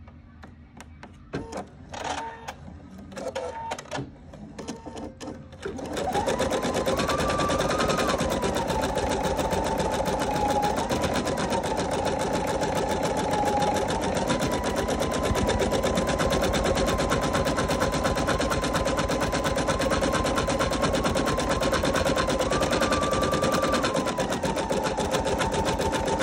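Computerized embroidery machine: a few clicks, then about six seconds in it starts stitching and runs steadily, with a fast needle rhythm and a motor whine that shifts slightly in pitch.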